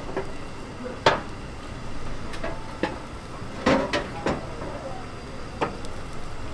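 Kitchenware clatter: about five sharp knocks and clinks of pots, dishes and utensils being handled, with a close pair near the middle, over steady background noise.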